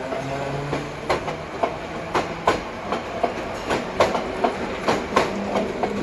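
Green HÉV suburban electric train rolling past, its wheels clacking over rail joints and points about three times a second, with a steady low hum underneath.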